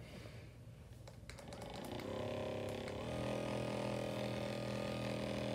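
FitRx Pro percussion massage gun with its flat-head attachment, switched on about two seconds in. Its motor runs with a steady hum that changes tone and grows fuller about a second later. A few light clicks come just before it starts.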